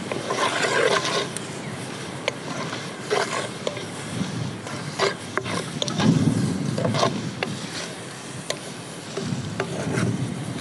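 Wooden spoon stirring and scraping in a metal pan on a wood-fired drum stove, with scattered sharp clicks and knocks over a low steady rumble.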